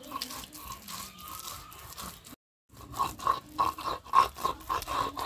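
Stone roller worked back and forth on a flat grinding stone (shil-pata), crunching and scraping as it grinds dried fish and then green leaves into paste. A short silent break comes about two and a half seconds in, after which the strokes are louder and regular, about three a second.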